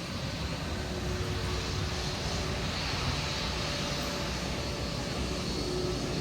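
Airliner engines heard from the ground: a steady rushing noise with a faint high whine and a few low steady tones.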